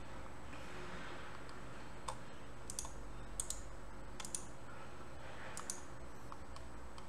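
Faint computer mouse clicks, scattered and several in quick pairs, over a low steady room hum.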